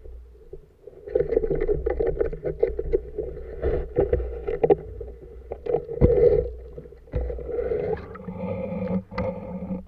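Shallow water splashing and sloshing around gear moved through it, with many sharp knocks and clicks and a low rumble, starting about a second in.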